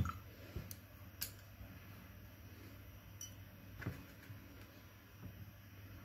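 A paintbrush knocking against a glass water jar and a metal watercolour paint tin: one sharp knock at the start, then a few scattered light clicks and taps. A steady low hum runs underneath.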